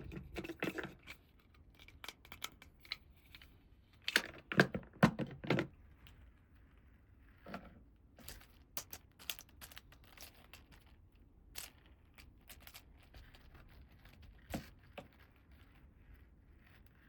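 Small clicks, taps and rustles of plastic toy pieces and packaging being handled, with two busier flurries of clicking near the start and about four seconds in.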